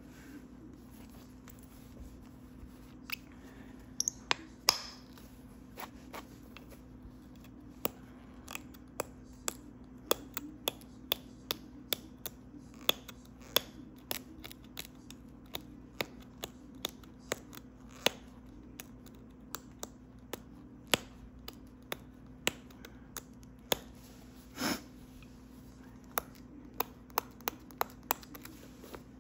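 Pressure flaking heat-treated Flint River chert while notching a point: many small, sharp clicks and ticks as the tool presses and flakes snap off the stone, coming irregularly about one or two a second. A faint steady hum runs underneath.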